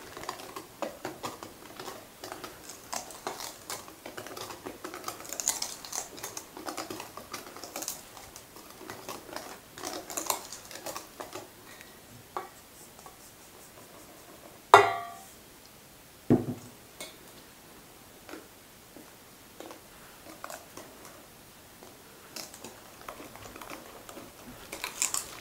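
Wire whisk clicking and scraping against a stainless steel bowl as dry flour and cocoa are worked into chocolate brownie batter. The strokes are busy at first and thin out as the batter comes together. A sharp knock that rings briefly comes about halfway through, then a duller knock just after.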